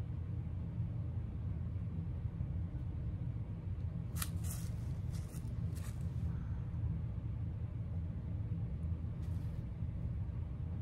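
A steady low hum throughout, with a few faint, brief rustles about four to six seconds in.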